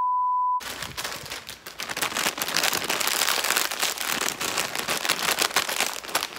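A steady 1 kHz test-tone beep cuts off about half a second in. After it, a foil potato chip bag crackles and crinkles densely as it is shaken and crushed in the hands.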